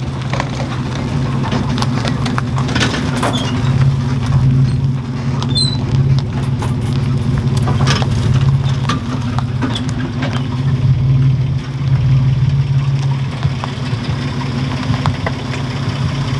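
Toyota 4Runner's engine running steadily at low speed while it reverses a boat trailer, with scattered crunches from the tyres rolling over dry leaves and dirt.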